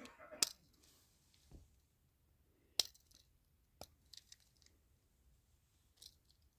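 Scattered metal clicks and clinks of a Swiss Army-style pocket multitool being handled as its folding blades and tools are worked, the sharpest click near three seconds in.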